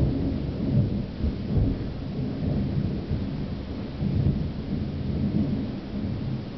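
Thunder rumbling continuously during a lightning storm, swelling and fading in several low surges.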